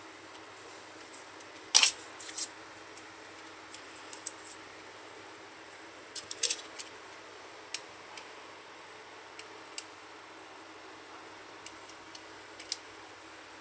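Scattered short clicks and taps from hands handling a cylindrical-cell lithium-ion battery pack and its nickel connecting strips, with small hand tools on the work mat. The loudest clicks come about two seconds and six and a half seconds in, over a faint steady hum.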